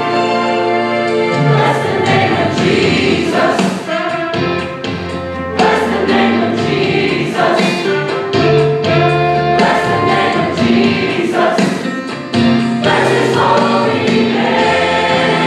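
Mixed choir of men and women singing in harmony, holding sustained chords broken by crisp consonants between phrases.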